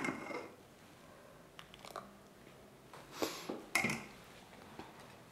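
Clinks and knocks of a metal ladle and dishes while serving soup: a short clatter at the start, a few faint ticks, then two sharper knocks about three and four seconds in.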